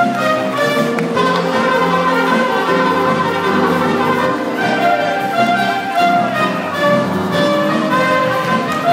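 Orchestral music with brass and strings, a melody moving over held chords, playing steadily as accompaniment to a circus big-cat act.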